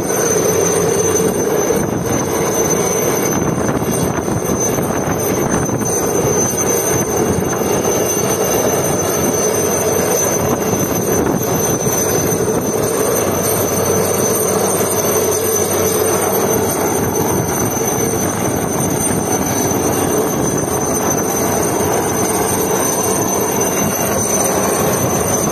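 Helicopter flying low over the sea: a loud, steady rotor and engine roar with a thin high whine, mixed with surf breaking on the rocks.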